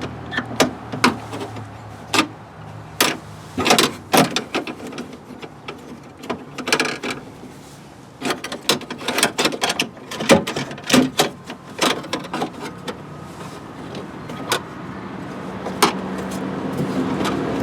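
Scattered clicks and knocks of hands and tools working on the lock rods and plastic clips inside a car door, with a steady low hum building near the end.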